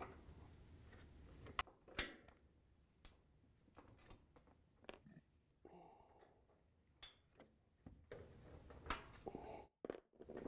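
Faint, scattered clicks and light knocks of a Phillips screwdriver and gloved hands on a dryer's metal door hinge as its screws are taken out, with a soft scrape about six seconds in.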